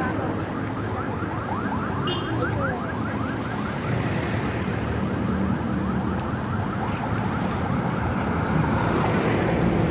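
Street traffic noise with vehicle engines rumbling, overlaid in the first few seconds by a rapid series of short high chirps, about six a second, that then thin out.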